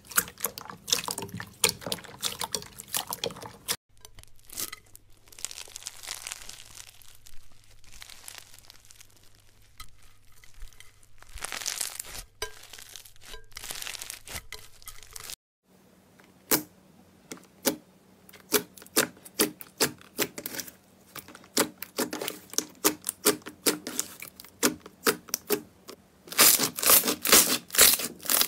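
Hands squeezing and kneading slime, making sticky crackling and popping clicks in short runs; in the middle stretch a beaded slime crunches as it is squeezed. Near the end a fast run of loud pops as a white slime is pressed.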